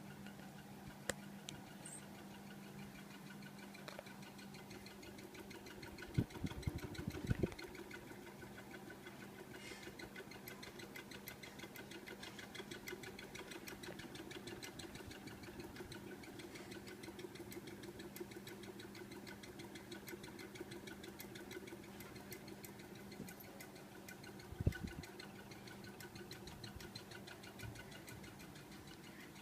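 Mini ceiling fan running: a steady low motor hum with a fast, fine ticking over it, and a few low thumps about six to seven seconds in and again near the end.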